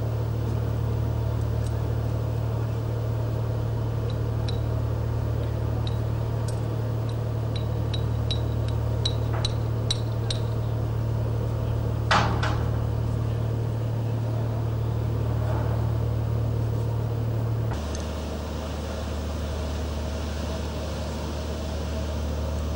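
Steady low drone of a ship's engine heard on board. Light ticking clicks come faster and faster for a few seconds, then there is a single sharp knock. Near the end the drone drops abruptly to a different, slightly quieter hum.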